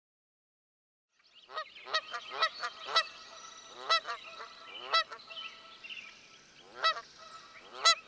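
Bird calls beginning about a second and a half in: a string of short, loud calls at uneven intervals, about eight in all, with fainter higher bird sounds beneath.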